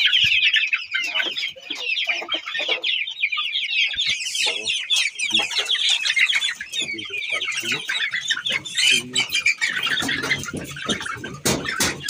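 A cage full of young chickens peeping and clucking without pause, many short high calls overlapping, with lower clucks joining in toward the end and a couple of sharp clicks just before it ends.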